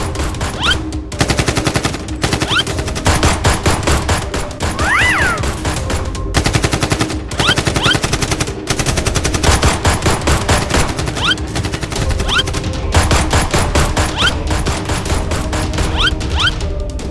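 Rapid, nonstop machine-gun-style gunfire, with short rising whistles now and then, from a Nerf blaster fight.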